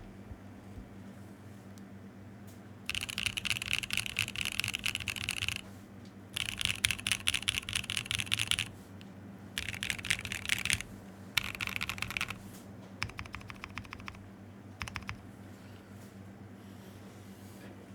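Fast typing on a custom Unikorn R2.1 mechanical keyboard with lubed Zykos switches, a carbon fiber plate and Infinikey Hive keycaps. Four runs of rapid keystrokes start about three seconds in, then thin to a few scattered presses.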